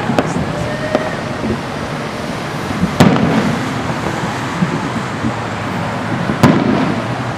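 Fireworks going off: two sharp booms about three and a half seconds apart over a continuous noisy background of more distant bursts.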